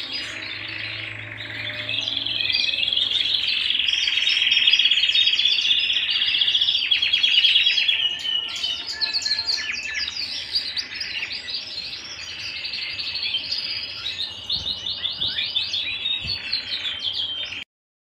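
Domestic canary song: long, rapid trills and rolling phrases, loudest in the middle. The song breaks into shorter phrases later and stops abruptly near the end.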